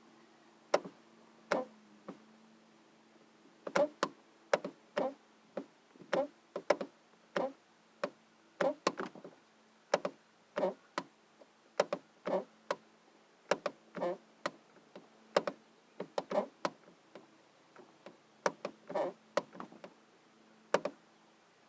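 A door clicking over and over at uneven intervals: sharp, short clicks, some coming in quick pairs, over a faint steady hum.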